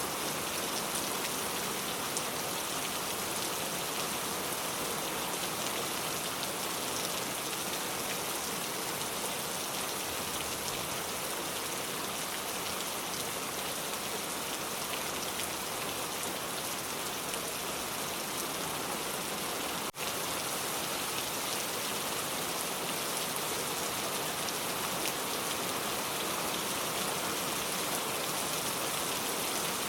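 Steady rain falling, a dense, even hiss of drops on surfaces, with a momentary drop in level about twenty seconds in.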